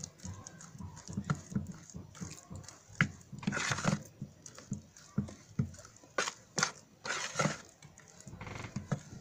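A hand stirring and kneading wet henna paste, mixed with vinegar and anti-dandruff shampoo, in a plastic basin. It gives irregular wet squelches and soft knocks against the bowl.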